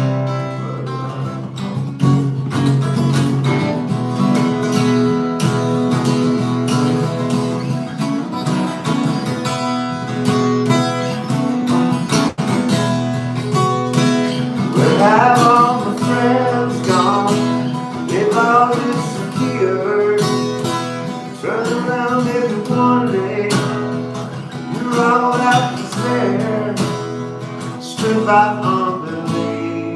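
Acoustic guitar strummed in steady chords, with a man's voice singing along in phrases from about halfway through, the words unclear.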